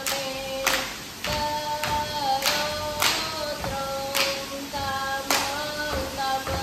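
Women's voices singing a melody in unison for a Ratoh Jaroe seated dance. Sharp, unison hand claps and slaps on the chest and thighs cut across the singing, with several strong strokes spread unevenly through the passage.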